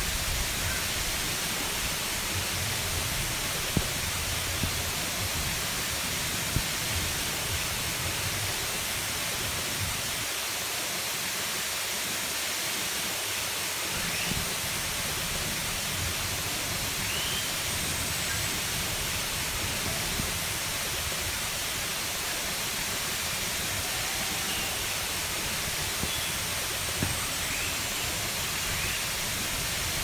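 Small waterfall pouring over rock into a pool: a steady, even rush of falling and splashing water, with a few faint short high chirps above it in the second half.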